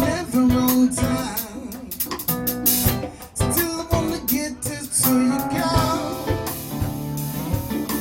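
A small band playing acoustic funk and soul music: guitar over a steady drum beat.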